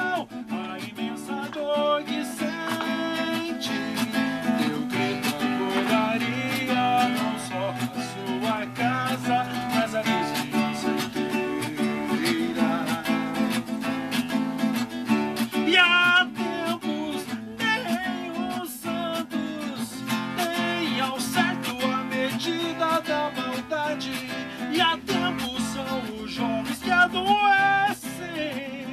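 Acoustic guitar played continuously, with strummed chords and picked notes.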